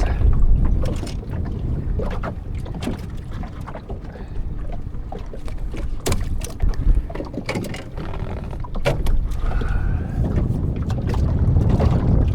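Wind rumbling on the microphone aboard a small fishing boat, with scattered sharp clicks and knocks.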